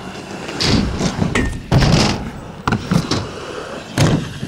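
Several dull thuds and knocks of someone jumping and landing on wooden skatepark ramps, over a steady outdoor hiss.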